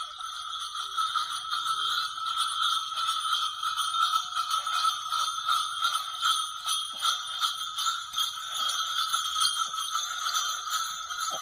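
Many small bells on a pair of Khilari bullocks jingling continuously and rapidly, building up over the first couple of seconds as the pair moves at speed.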